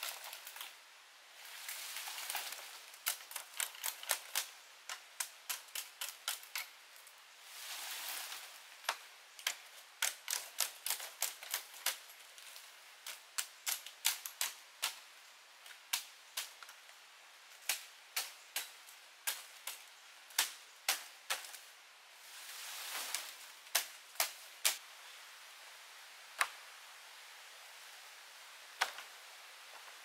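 Sharp knocks in quick irregular runs, often several a second, with a few short rustling swells between them. The knocks thin out to only a couple near the end.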